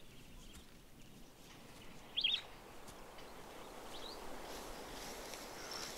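Quiet outdoor ambience with a small bird chirping: a quick cluster of short gliding chirps about two seconds in, and a fainter single chirp around four seconds.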